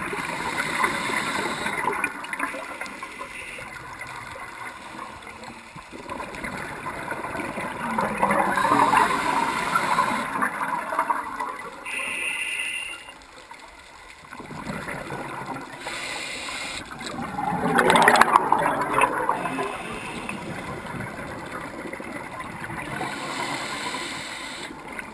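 Scuba regulator breathing heard underwater through a GoPro housing: muffled, gurgling rushes of exhaled bubbles, the loudest about eight and eighteen seconds in, with quieter stretches between.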